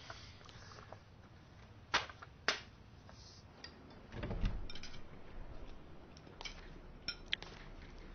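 Quiet indoor room sounds: two sharp clicks or knocks half a second apart about two seconds in, a short low rumble a little after the middle, then a few faint light clicks.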